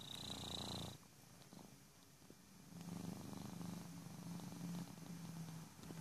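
Persian cat snoring in its sleep: a snore with a thin high whistle in the first second, then a low rattling buzz in short stretches from about three seconds in.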